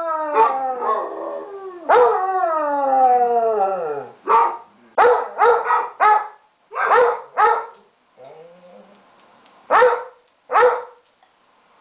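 Basset hound howling for its absent owners: two long howls that slide down in pitch, then a string of short baying barks, the last two near the end.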